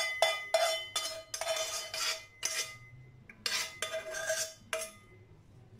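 Metal spoon scraping tomato sauce out of an enamel saucepan: quick repeated scrapes and clinks, about two a second, with the pan ringing after each, stopping a little before the end.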